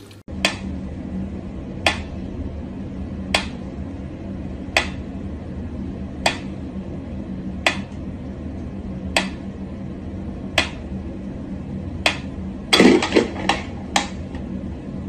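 Pyramid-shaped mechanical metronome ticking slowly, one sharp tick about every second and a half. A louder short clatter of knocks breaks in near the end.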